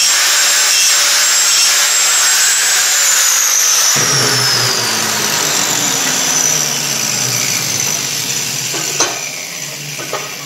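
Angle grinder grinding the edge of a metal wheel hub adapter clamped in a vise, a steady high whine over the grinding noise. About three seconds in it is switched off and the whine falls away slowly as the disc spins down; a single light knock near the end.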